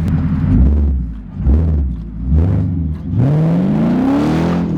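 Car engine blipped three times in quick short stabs, then revved steadily up to high rpm near the end, as in the run-up to a burnout.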